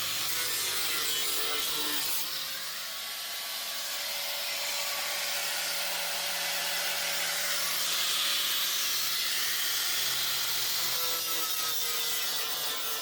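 A power tool cutting out a rusted section of a car's sheet-metal body, a steady rasping hiss with a faint wavering whine.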